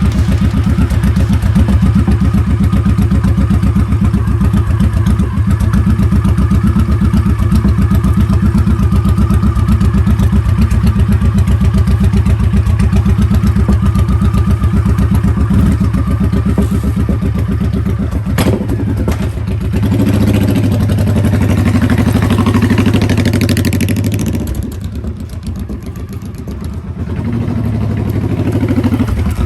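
Motorcycle engine running under way with an even firing pulse, easing off briefly near the end and then picking up again.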